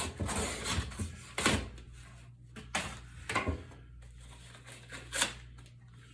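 A folding knife slicing through a cardboard whiskey box in several irregular rasping strokes, with pauses between cuts.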